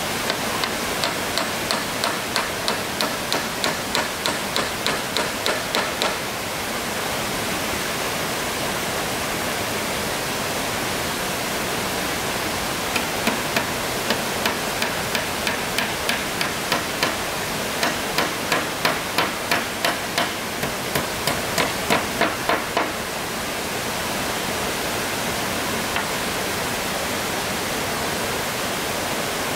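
Hammer driving nails into the wooden planks of a roof, about two strikes a second, in two runs: one at the start lasting about six seconds and another from about thirteen seconds in lasting about ten seconds. A steady rush of flowing water runs underneath.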